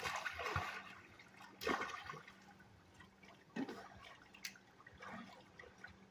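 Pool water splashing and sloshing as children swim at the pool's edge, in a few irregular bursts, with a faint steady hum underneath.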